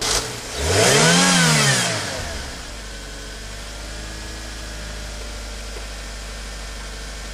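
Small car's engine revved once, its pitch rising and then falling over about a second and a half. It is followed by a steady low hum.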